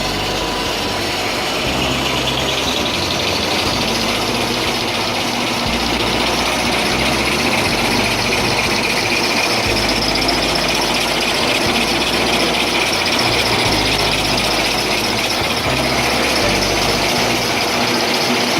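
Automatic colour-gluing kitchen towel roll converting machine running at production speed: a steady mechanical clatter and high hiss that rise in the first couple of seconds and then hold level.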